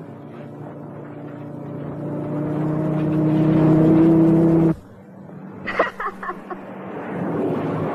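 Truck engine running with a steady hum that grows louder, then cuts off abruptly about five seconds in. A few quick, short, sharp sounds follow.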